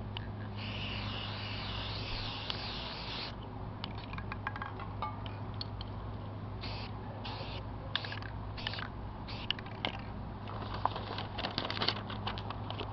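Aerosol spray paint can spraying: one long hiss of about three seconds near the start, then several short bursts a few seconds later. Scattered clicks and taps fall between the sprays.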